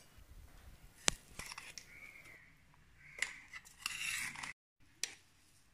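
Chopped onion, tomato and crushed ginger-garlic being tipped into a metal pressure cooker pot: a few sharp clicks and taps, then a scraping rustle about three to four seconds in.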